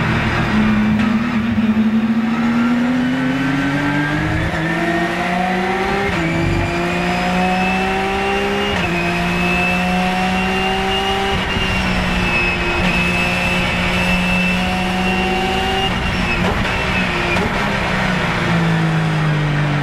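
Porsche 997 GT3 Cup race car's flat-six engine heard from inside the cockpit under hard acceleration, the pitch climbing through the gears with upshifts about six and nine seconds in. It then holds a nearly steady pitch at speed, and falls over the last few seconds as the car slows, with a brief rise near the end.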